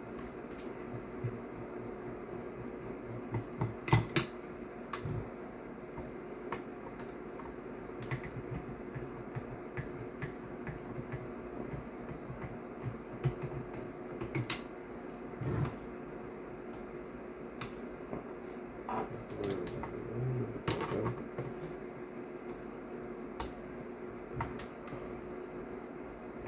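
Scattered small clicks, taps and knocks of a screwdriver and small metal and plastic parts being handled while screws are taken out of an airsoft rifle, over a steady low hum. The sharpest knock comes about four seconds in.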